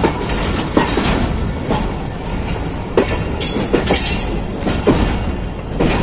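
Passenger train rolling slowly through a junction yard: a steady low rumble with irregular heavy clacks, about one a second, as the coach wheels cross rail joints and points. A brief high-pitched squeal about four seconds in.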